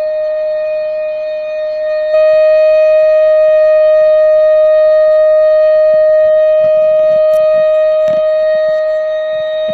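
Tornado warning siren sounding a test: a loud steady tone held at one pitch, with no rise or fall. It gets suddenly louder about two seconds in.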